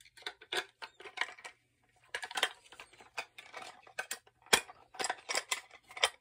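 Batteries being fitted into the battery compartment of a battery-powered animated Santa toy: a run of irregular clicking and rattling, with one sharp click about four and a half seconds in.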